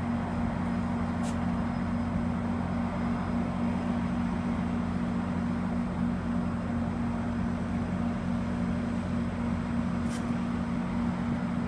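Stationary GO Transit bilevel commuter train idling at the platform: a steady low hum from its diesel locomotive and onboard equipment. Two brief faint hisses come about a second in and near the end.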